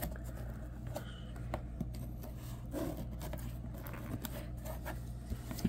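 A folding knife slitting and scraping at packing tape on a cardboard shipping box: faint scratching with a few small clicks and taps.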